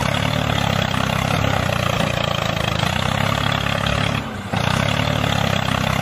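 Tractor engine running steadily, with a brief drop in level about four seconds in.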